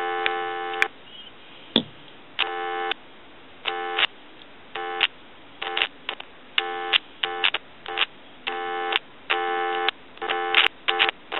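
Dial tone from the receiver of a wood desk telephone's handset, cutting in and out in about ten short, irregular bursts as the handset cord is pulled and flexed: an intermittent break in the cord where it enters the handset.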